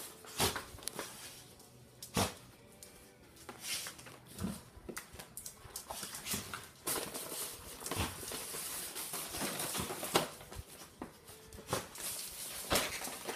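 Two dogs rummaging through plush toys on their beds, with scattered sharp clicks and knocks, about half a dozen, over a faint background.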